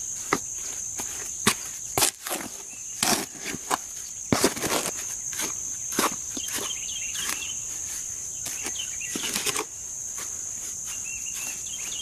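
Dry Portland cement and sand being stirred together by hand: irregular gritty scrapes and knocks of the tool against the dry mix and its container, in uneven clusters. A steady high insect drone runs underneath, with a few bird chirps about halfway through and near the end.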